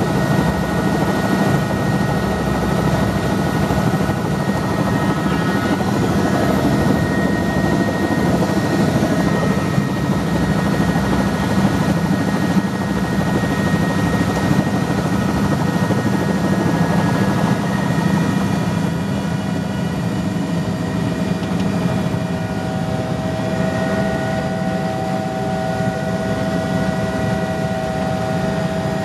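Helicopter running, heard from inside the cockpit: a dense, steady engine and rotor drone under several steady high whining tones. About two-thirds of the way through the pitch of the whine shifts and a new, lower tone joins it.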